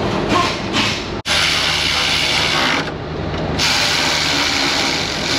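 Cordless electric ratchet running in two bursts of about a second and a half each with a short pause between, driving fasteners on a car's radiator support.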